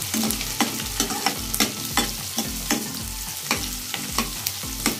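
Chopped onions sizzling in hot oil in a kadai while a steel ladle stirs them, scraping and clicking against the pan at irregular intervals over a steady frying hiss.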